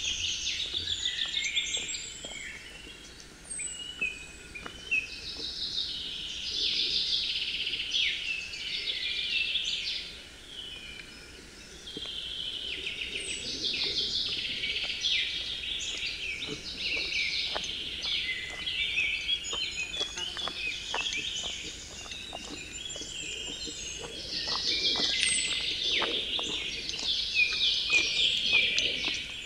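Forest birds singing in a busy chorus, their high songs coming in spells of a few seconds, with light, irregular crunching of footsteps on the trail beneath.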